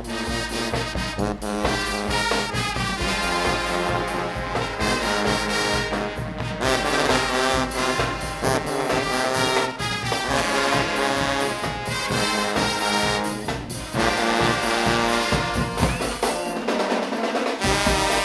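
Guggenmusik band playing loudly: massed trumpets and trombones over a drum beat. Near the end the low drums drop out for a moment, then the full band comes back in.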